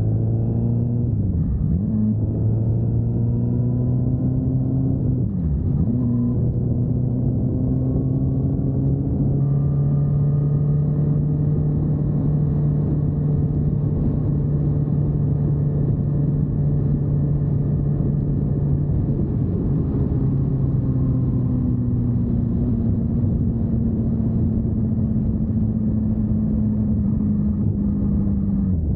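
Honda CBR1000RR inline-four engine running at road speed under a steady rush of wind and road noise. Its note dips briefly twice in the first few seconds, climbs, holds steady for a long stretch, and eases off near twenty seconds and again near the end.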